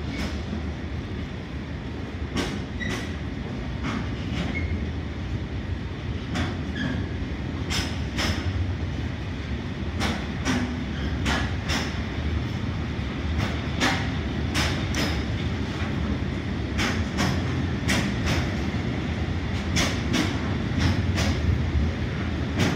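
Freight train of high-sided open goods wagons passing close by: a steady low rumble with many sharp, irregular clacks of the wheels over the rail joints.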